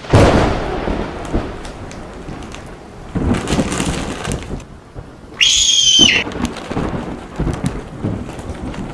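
Thunderstorm: a loud thunderclap at the start fading into steady rain, with another rumble swelling about three seconds in. A short high whistle-like tone sounds about five and a half seconds in.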